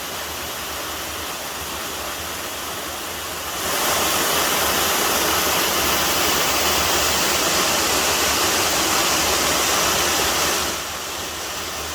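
Waterfall's rushing water, a steady noise that gets louder about four seconds in and drops back again near the end.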